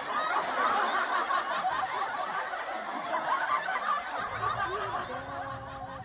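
Several voices laughing and chattering over one another. After about four seconds this gives way to a low hum with a few long, drawn-out tones.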